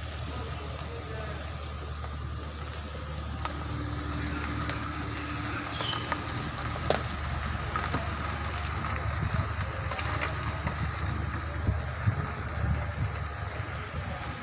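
A vehicle engine idling, a steady low rumble, with a few faint clicks and knocks over it.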